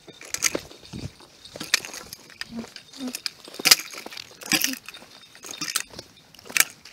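Footsteps on a dry woodland dirt path littered with twigs and leaf debris, sharp crackly steps coming irregularly, about one a second.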